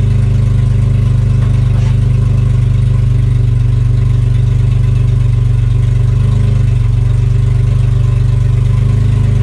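Renault Twingo Cup race car's engine idling steadily, heard from inside the stripped cabin: an even, low running note with no revving.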